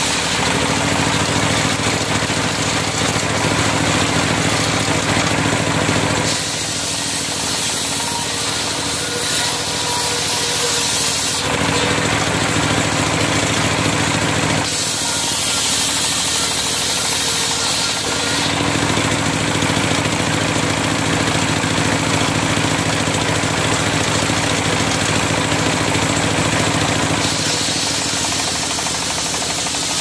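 Large engine-driven circular sawmill blade ripping a log into slabs: a steady mechanical drone under a loud sawing hiss. The sound changes every few seconds as the cut goes on, with the hiss easing around 6 to 11 seconds in and again around 15 to 18 seconds.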